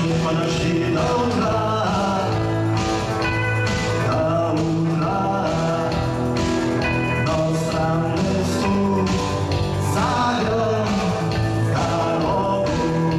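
A song: a sung melody over guitar-led band accompaniment with a steady beat.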